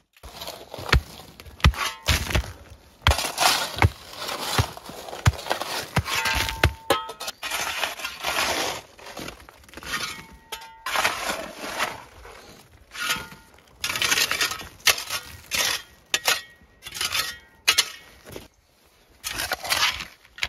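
Shovel working crushed sandstone gravel: repeated scoops, each a scrape into the pile followed by stones clattering and clinking as they are tossed and spread for a drainage layer. Sharp knocks come thick in the first several seconds, then longer rattling scrapes.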